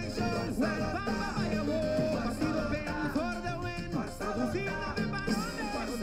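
Upbeat salsa-style Latin song with singing over a band, a political campaign jingle.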